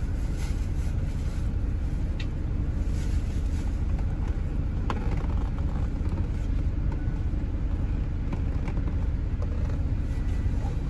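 Steady low rumble of a coach running, heard from inside its passenger cabin.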